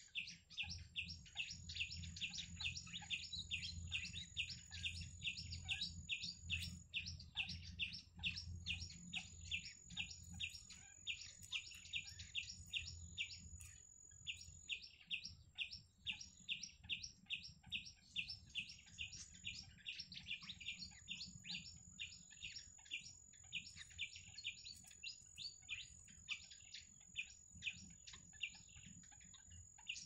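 Birds chirping rapidly and steadily, about four chirps a second, with short breaks near the middle and end. A thin, high, steady tone runs alongside and drops out a few times.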